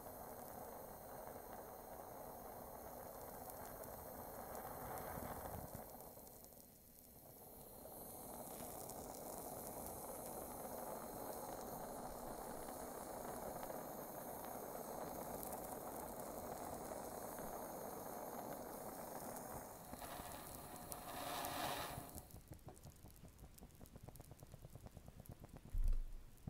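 Torch flame hissing steadily as it burns a plastic figurine, with a brief dip about six seconds in. It shuts off a little after twenty seconds, leaving faint crackling and ticking from the burning plastic, and a short knock near the end.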